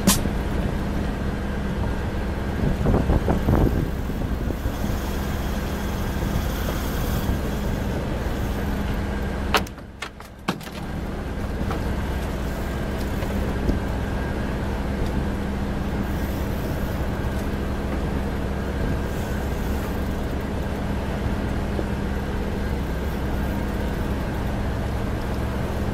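Boat's outboard motor idling steadily under a haze of wind and water noise, with a short drop in level about ten seconds in.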